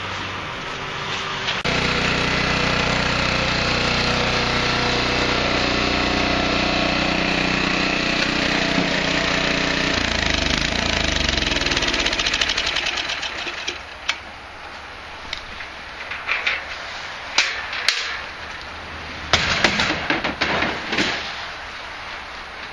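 A motor starts about two seconds in and runs steadily with a fast rapping pulse, then winds down and stops about halfway through. After it come scattered short knocks and scrapes.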